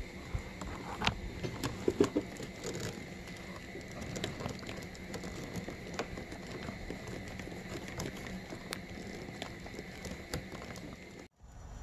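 Hand-warmer wiring connectors and harness wires being handled and pushed together by hand: scattered small plastic clicks and rustles, loudest about two seconds in.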